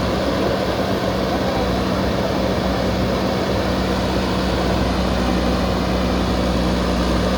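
Backhoe loader's diesel engine running steadily at a constant speed, with a low, even hum.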